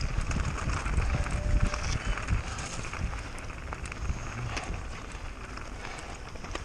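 Mountain bike descending at speed: wind buffeting the onboard camera's microphone, with rattles and knocks from the bike and its tyres over rough ground. Loudest in the first few seconds, easing a little after.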